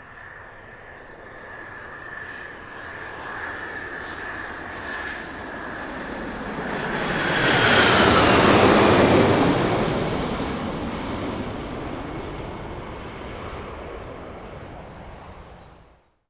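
Jet aircraft flying past: a steady high turbine whine and rushing noise build to a peak about halfway through. The pitch drops as it passes, then the sound fades away.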